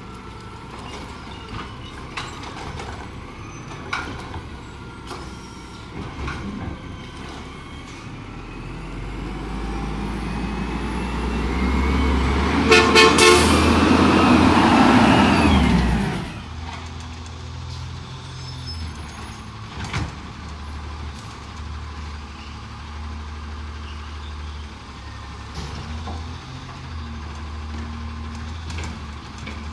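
Heil Rapid Rail side-loader garbage truck on an Autocar WX64 chassis, its engine growing louder as it comes close, with a short horn honk just before the loudest part. The sound cuts off sharply a little past halfway and gives way to another garbage truck's engine running steadily.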